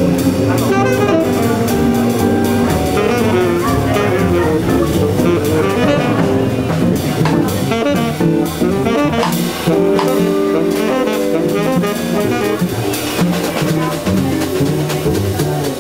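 Small jazz group playing live: a saxophone carries a melodic line over drum kit and upright bass.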